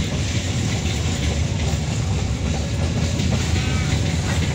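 Fully loaded coal train's open wagons rolling past, a steady rumble of steel wheels on the rails with dense rattling clicks.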